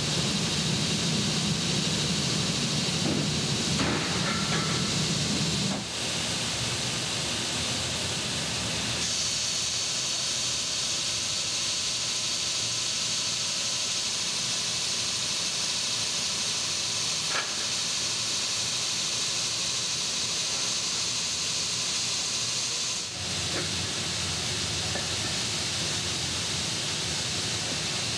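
Automatic air-pressure sanding machine for aluminium scuba cylinders running: a steady hiss with a low hum, which gives way about six seconds in to a plainer hiss that turns brighter and higher from about nine to twenty-three seconds in.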